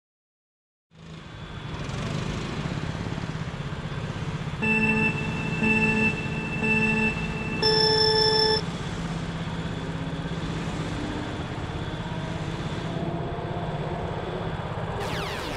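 Race-start countdown: three short, lower beeps about a second apart, then one longer, higher beep, over the steady running noise of a go-kart. A brief whoosh comes near the end.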